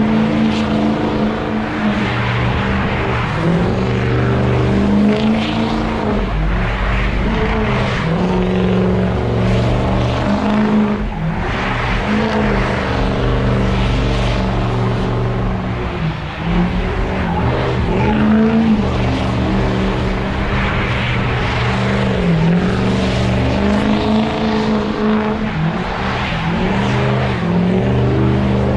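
Car engine held at high revs during a burnout, the revs repeatedly dipping and climbing back, with the hiss of spinning tires.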